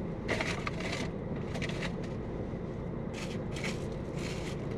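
Food packaging crinkling and rustling as it is handled, in about five short bursts, over a steady low hum.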